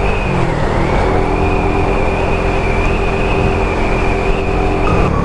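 Suzuki Raider 150 Fi's single-cylinder four-stroke engine running while riding at steady revs. The revs dip briefly about a second in, then pick up again, and shift once more near the end.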